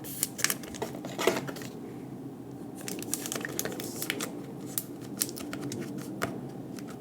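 Pokémon trading cards and a foil booster-pack wrapper being handled: many short, irregular crinkles and clicks as cards are slid and flicked through and the pack is worked open.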